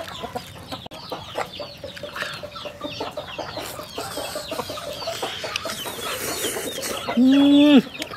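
Chickens clucking, a steady run of short calls, with one loud drawn-out call of under a second near the end.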